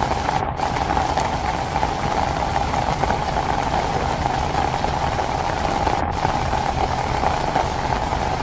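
Steady heavy rain pouring through forest, a continuous hiss with a low rumble and an even mid-pitched hum running through it.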